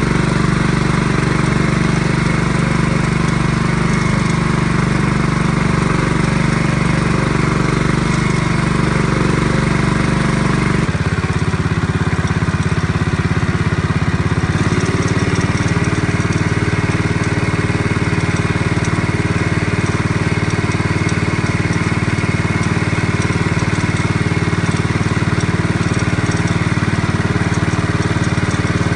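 A small engine running steadily; its note changes abruptly about eleven seconds in and then holds steady again.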